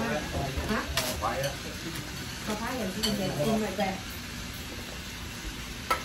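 Faint background talk and a few light clinks of dishes and cutlery over a steady hiss, about a second and three seconds in.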